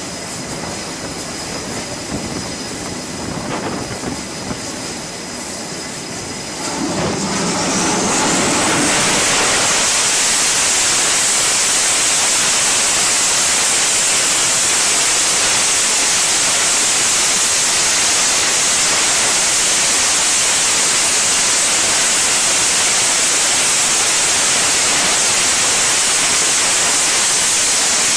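F/A-18 fighter's twin jet engines on the catapult: a steady whine at first, then about seven seconds in a rising whine as they spool up to full power for launch, settling into a loud, steady roar.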